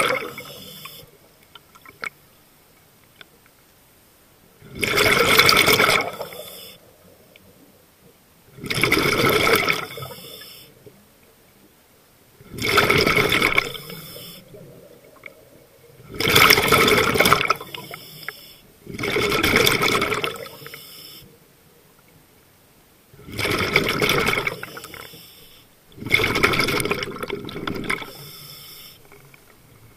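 A scuba diver's exhaled breath bubbling out of the regulator underwater, in loud bubbling rushes about every three to four seconds, each a second or two long, with quiet pauses between breaths.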